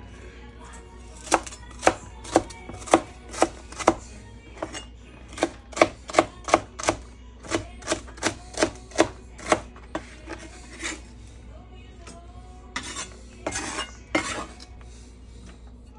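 Chef's knife chopping garlic cloves on a wooden cutting board: sharp knocks of the blade on the board, about two to three a second, in two runs. A few longer, rougher strokes follow near the end.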